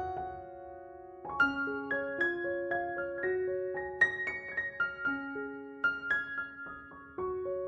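Background piano music: a slow melody of single struck notes that ring and fade, with a short pause about a second in.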